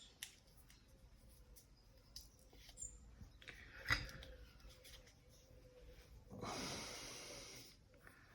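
Quiet handling of a knife clamped in a sharpening jig: faint scattered clicks, one sharper click about four seconds in, and a hissing rasp lasting about a second and a half near the end.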